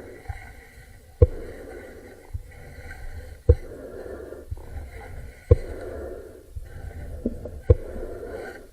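Heavy rhythmic breathing, with a sharp knock about every two seconds.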